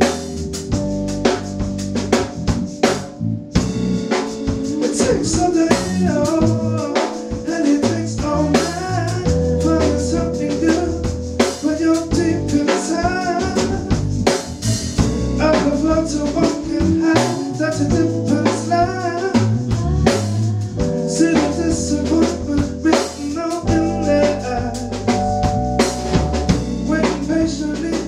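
A live band playing a melancholic soul and hip-hop tune, with drum kit, a bass line and a melody on keyboard and guitar.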